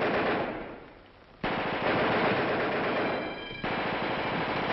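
Rapid gunfire, a dense crackle of many shots. It fades away about a second in, then starts again suddenly and keeps going, the sound of an outbreak of shooting at a jailbreak.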